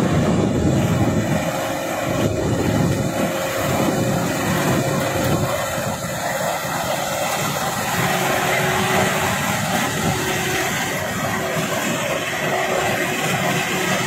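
Kubota DC-93 combine harvester's diesel engine and threshing machinery running steadily while it cuts ripe rice.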